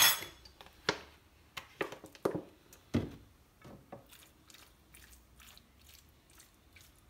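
A metal spoon clicks down, then raw marinated chicken strips are turned by hand and with a fork in a dish: soft wet squishes and light clicks at irregular moments, fainter and sparser in the second half.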